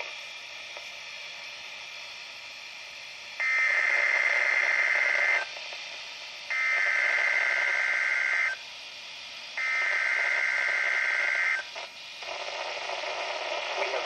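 EAS SAME header data bursts from a weather alert radio's speaker: three loud stretches of buzzing digital tones, each about two seconds long and about a second apart, starting about three and a half seconds in. They carry the coded Amber Alert activation that alert receivers decode. A steady radio hiss lies under and between them.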